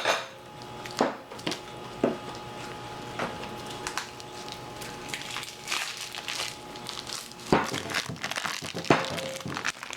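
Wrapper being pulled and torn off a package of ground turkey, crinkling and crackling in irregular bursts with scattered sharp crackles.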